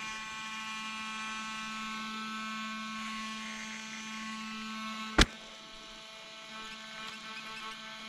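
Small electric cooling fans on a hot 6S brushless RC truck running with a steady humming whine while the truck sits still. About five seconds in there is a single sharp click.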